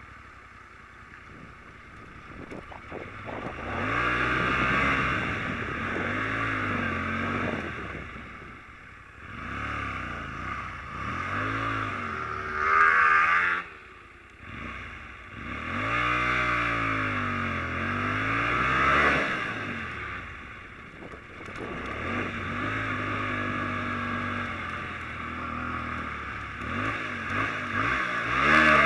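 Small 125cc motorcycle engine revving hard in repeated surges, its pitch climbing and falling as the bike is ridden up a grassy slope. About halfway through it peaks and drops away sharply, then revs up again.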